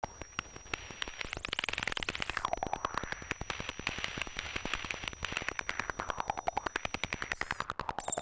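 Electronic sound-art piece: a fast, even stream of clicks with a noisy band sweeping slowly down and up in pitch, over thin, steady, high whistling tones.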